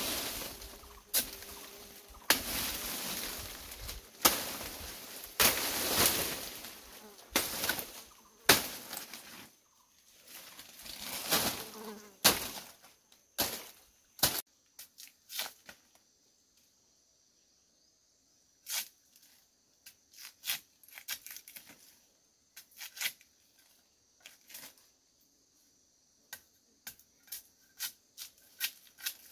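Irregular knocks, clicks and rustling, busy through the first half and then only scattered clicks. A faint steady high hiss runs under the second half.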